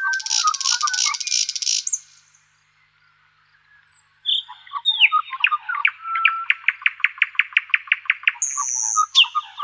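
Forest songbirds singing: a dense, high buzzy trill for about two seconds, a short pause, then a song of rapid repeated chirps, about six a second, that ends in a short high buzzy note.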